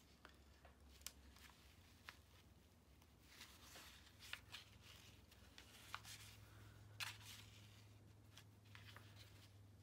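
Faint rustling and small scattered ticks of wool yarn being pulled through knitted fabric with a needle, and hands brushing against a paper template, over a low steady hum.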